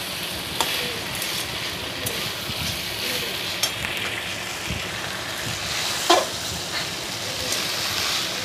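Sauce-coated pasta sizzling in a steel wok while a spatula stirs and scrapes it, with scattered clicks and one louder knock of the spatula against the pan about six seconds in.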